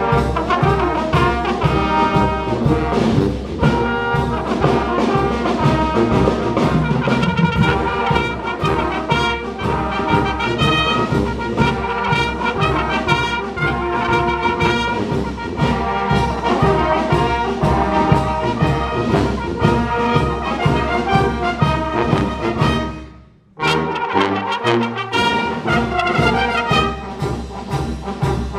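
Brass band of trumpets, trombones and sousaphone playing a tune over a steady beat. About 23 seconds in the music stops dead for a moment, then the band comes back in.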